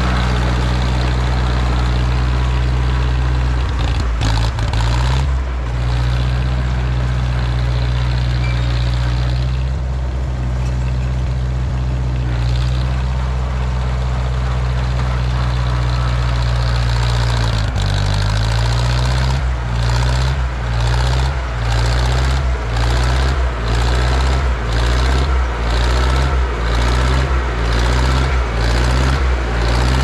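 A John Deere 1010 crawler dozer's carbureted gasoline engine running under load as the machine works dirt, its pitch shifting about two-thirds in. After that the sound dips in a regular pulse a little more than once a second. The operator says the engine is running poorly, with dirt in the carburetor.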